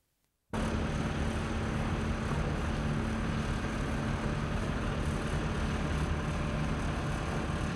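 Heavy marine engine of a landing craft running steadily as the craft is docked, with a constant low hum over a dense rumble. It cuts in abruptly about half a second in.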